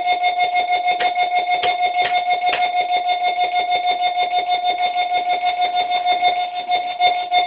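Roland SH-101 monophonic analog synthesizer holding one steady high note that pulses rapidly, about six times a second. A few faint clicks sound in the first three seconds.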